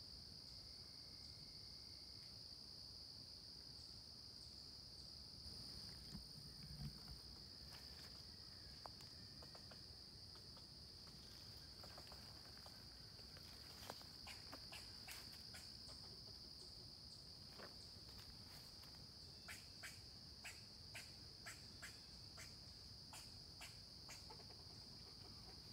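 Faint, steady high-pitched chorus of insects in late-summer woodland. In the second half there is a scattered run of faint sharp clicks and crackles.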